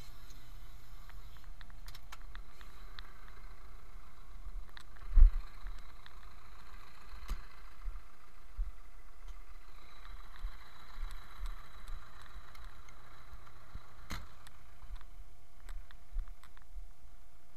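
Zetor 10145 tractor's diesel engine idling steadily, with one heavy thump about five seconds in and scattered smaller knocks and clicks.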